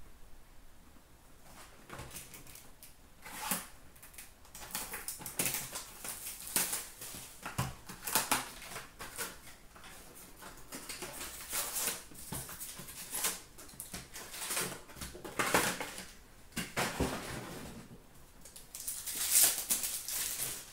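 Hockey card packs and their box being handled and opened by hand: irregular crinkling and ripping of pack wrappers and rustling cardboard, starting about two seconds in.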